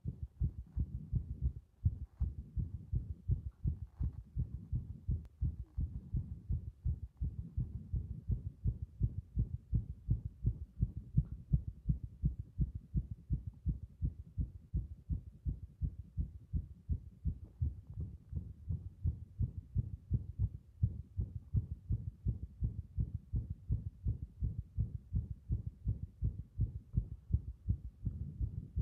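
Human heartbeat picked up through a stethoscope chest piece strapped to the bare chest: a continuous run of low lub-dub beats, recorded while the chest beside the chest piece is pressed hard with a can.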